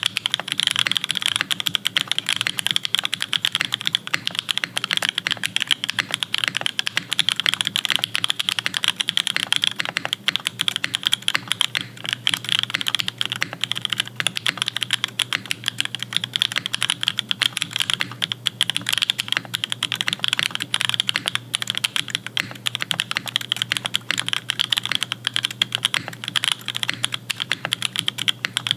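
Fast, continuous typing on a custom-built mechanical keyboard: a dense run of key clacks with no pauses.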